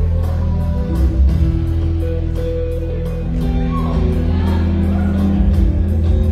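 Live band playing: a violin carries a slow melody of long held notes over bass guitar and electric guitar, with steady high ticks keeping the beat.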